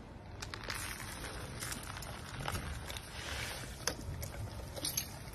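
Dry dog kibble poured onto a stone pavement, a brief rattling hiss, over a low outdoor rumble, with a few sharp clicks near the end.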